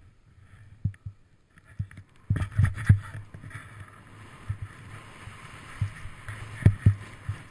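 A snowboard sliding on snow, heard from a camera worn by the rider: at first only a few low knocks, then about two seconds in a steady hiss of the board running down the slope begins, with scattered low thumps.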